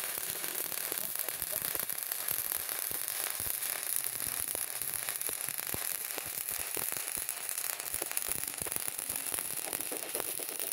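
Electric stick (electrode) arc welding: the arc gives a steady crackling hiss, with frequent sharp pops.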